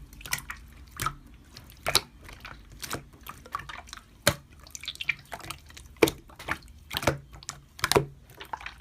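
Slime being handled, giving wet, sticky clicks and pops at irregular intervals, about one or two a second.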